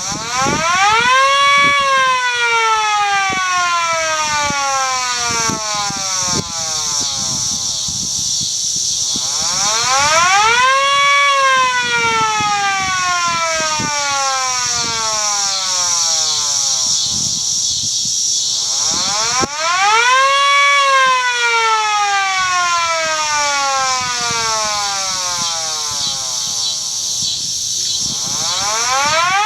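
Modified Federal Signal 2T22 electromechanical outdoor warning siren sounding a wail. Its pitch climbs in about a second and a half, then falls slowly over about eight seconds. The cycle repeats three times, with a fourth rise starting near the end.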